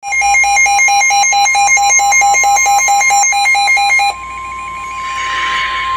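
Emergency Alert System flood-warning alert: a loud electronic alarm beeps in a fast repeating pattern of alternating pitches for about four seconds, then cuts to a single steady warning tone over faint radio hiss.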